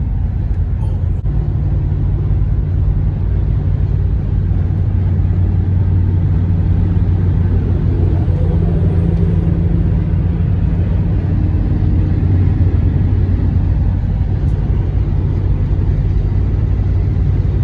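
Steady road and engine drone inside a car cabin while cruising on the highway: a constant low hum with no change in speed.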